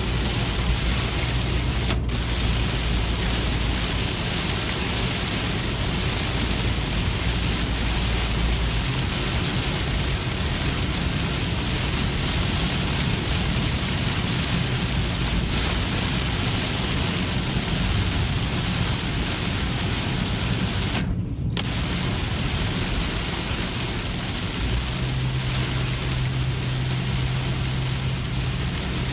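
Heavy rain falling on a car's roof and windshield, heard from inside the cabin, over a steady low drone of road and engine noise while driving.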